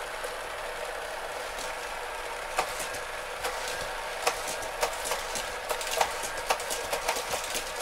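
Battery-powered Hot Wheels Track Builder motorized booster whirring steadily, with sharp plastic clicks and clacks of die-cast cars running on the orange track. The clicks come more often from about two and a half seconds in.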